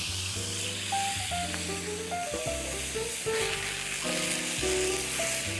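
A sauce of soy sauce, vinegar, sugar and rice wine sizzling steadily in a hot pan, just after the rice wine has gone in.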